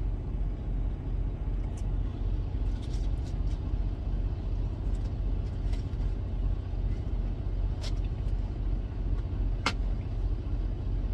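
Steady low rumble of an idling semi-truck diesel engine heard inside the cab, with a few light clicks and knocks, one sharper click near the end.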